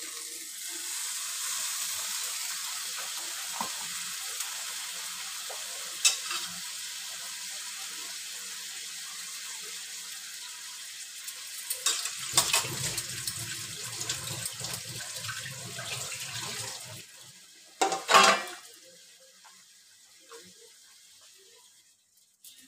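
Water poured onto hot oil and ground spices in a kadai, sizzling loudly the moment it hits and hissing steadily, then dying down over the last few seconds. A few sharp metal knocks from the spatula against the pan, the loudest near the end.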